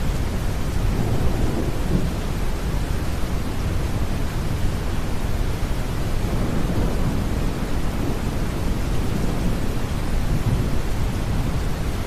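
Steady deep brown noise mixed with rain and low rumbles of distant thunder.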